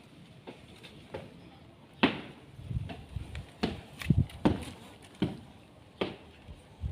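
Irregular light knocks and taps, about a dozen, the sharpest about two seconds in and a quick cluster around four seconds in.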